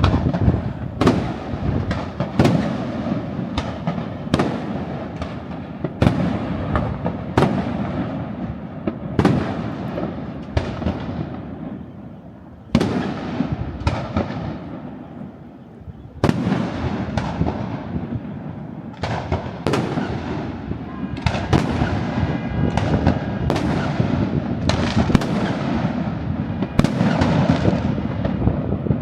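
Aerial fireworks display: a continuous run of booms, about one or two a second, each followed by a long rolling echo. The shots thin out for a few seconds around the middle, then resume thick and fast.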